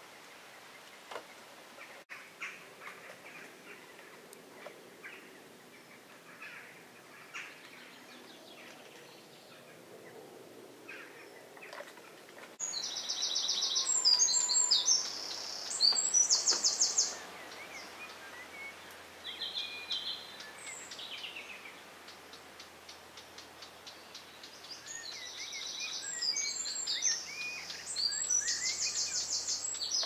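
Songbirds singing: faint scattered chirps at first, then loud, high, rapid trilling songs starting about twelve seconds in and again near the end.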